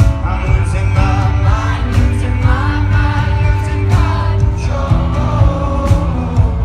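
Rock band playing live: a male lead singer over guitars, a heavy bass line and drums.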